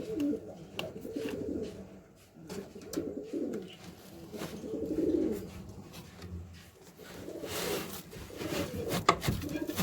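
Domestic pigeons cooing: low, warbling calls from several birds overlapping in repeated bouts, with a few sharp clicks and a brief rustle about three quarters of the way through.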